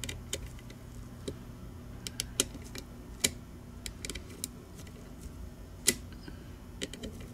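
Small screwdriver driving screws to fasten the main circuit board of a Logitech G Pro Wireless mouse into its plastic housing: irregular sharp little clicks and ticks of metal on screw and plastic, the loudest about six seconds in.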